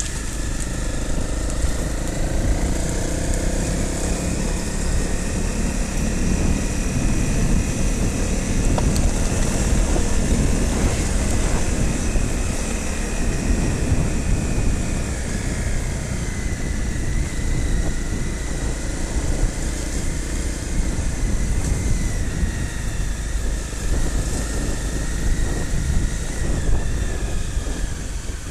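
Trail motorcycle engine running as it is ridden off-road, its pitch slowly rising and falling with the throttle over a constant low rumble.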